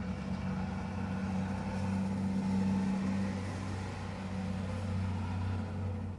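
Steady low hum of a car's engine idling, heard from inside the cabin of the stationary car.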